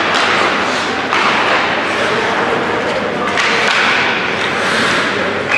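Ice hockey game noise in a rink: a steady loud wash of play and crowd sound, broken by sudden thuds about a second in and again a little after three seconds.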